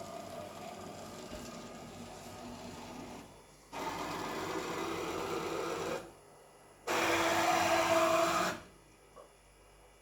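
JMC iHSV integrated servo motor driving a homemade CNC machine's X-axis: two moves, the first about two seconds long and the second about a second and a half and louder, each a steady whirring with a motor tone in it. A fainter steady hum runs before the first move.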